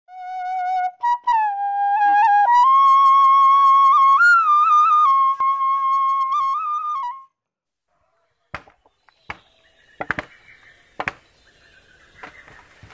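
Solo flute melody: a single line of notes, sliding between pitches, for about seven seconds before it stops. After a short silence come several sharp knocks and cracks.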